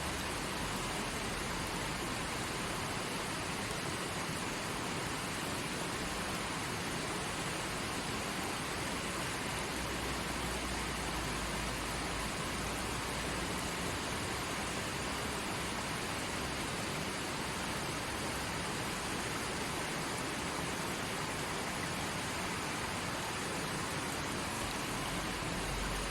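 A forest stream flowing steadily: an even, unbroken rush of water.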